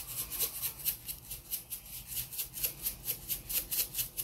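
Ground black pepper shaken out of its container in quick, even shakes, a rhythmic rattling hiss about four times a second.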